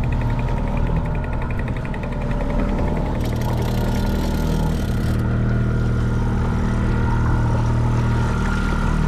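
Boat motor running steadily at trolling speed, with a fast, even ticking over it for the first three seconds or so.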